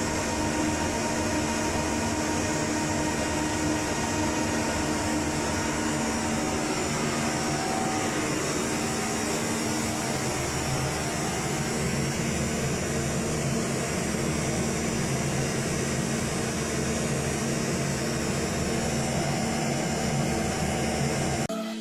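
Steady whir of equipment cooling fans with a faint electrical hum, even in level throughout, cutting off abruptly just before the end.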